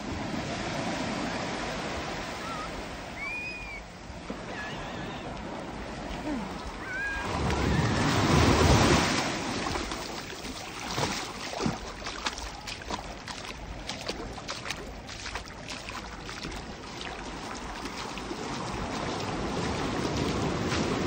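Small ocean waves washing up on a sandy beach, a steady hiss of surf with a louder rush of water about eight seconds in, followed by scattered small splashes.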